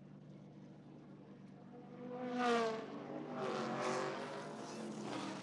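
NASCAR stock cars' V8 engines going past at speed. The loudest comes through about two seconds in with a falling pitch, and more follow close behind, over a steady low hum.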